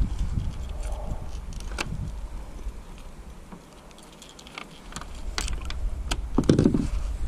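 Wind rumbling on the microphone, with scattered clicks and knocks of gear being handled in a fishing kayak. The wind dies down briefly in the middle, and a louder knock comes near the end.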